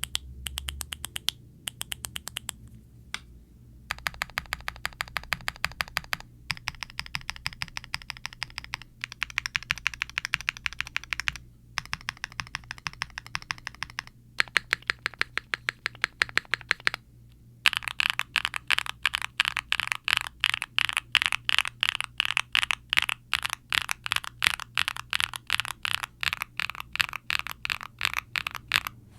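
Typing on a QwertyKeys Neo65 aluminum mechanical keyboard with HMX Siliworks Nap linear switches, a POM plate, full foam dampening and GMK doubleshot ABS keycaps: rapid keystrokes in runs of a few seconds with short pauses between them, then a long unbroken stretch of steady typing from a little past halfway.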